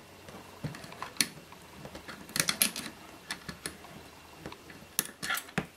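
Irregular light metallic clicks and taps of a wrench and pliers on a potentiometer's mounting nut and shaft, gripping and turning to free the broken potentiometer from a metal panel. The clicks bunch up about two and a half seconds in and again near the end.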